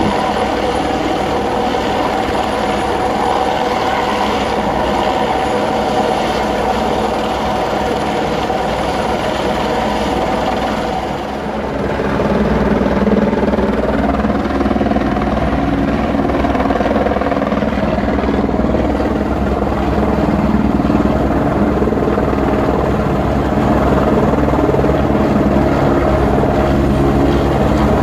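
A helicopter hovering low over the road, its rotor and turbine running steadily. About eleven seconds in, the sound dips briefly and comes back heavier and deeper, heard through the glass of a work vehicle's cab.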